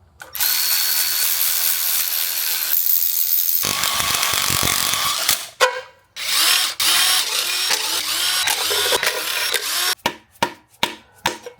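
Power tool running fasteners off a 454 big-block Chevy engine during teardown: long spells of whirring and ratcheting, then several short bursts about ten seconds in.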